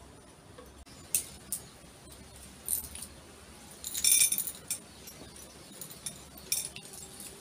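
Small seashells clinking against glass as they are dropped one at a time into a glass bottle. A few light, irregular clinks, with a brief cluster of them about four seconds in.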